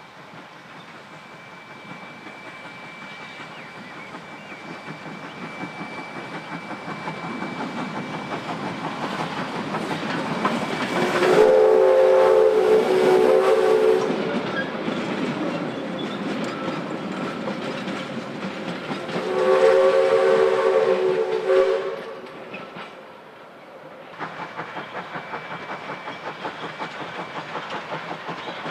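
Steam locomotive running and growing louder as it approaches, sounding two blasts of its multi-tone whistle, each two to three seconds long, about eleven and nineteen seconds in. Near the end a regular, quick beat from the running train takes over.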